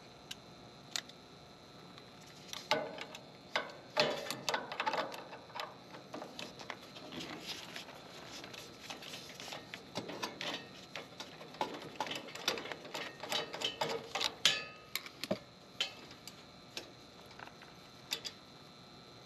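Light metallic clicks and taps, irregular and clustered, as a brass fitting is worked and threaded by hand onto an air-conditioner condenser's service valve.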